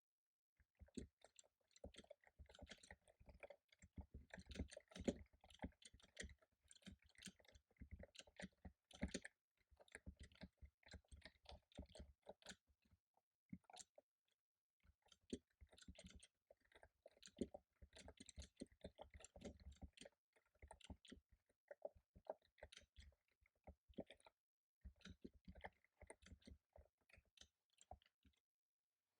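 Fast typing on a computer keyboard, quiet rapid key clicks in long runs, broken by a couple of short pauses.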